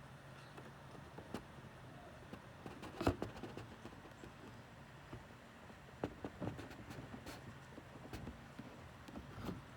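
A pet bird's low, steady vibrating hum, with scattered soft taps and clicks; the loudest tap comes about three seconds in.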